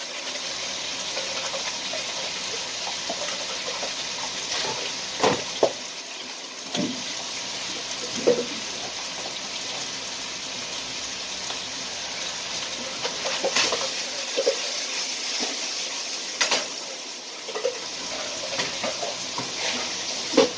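Chicken pieces frying in a hot pan: a steady sizzling hiss, with a few short clicks and knocks scattered through it.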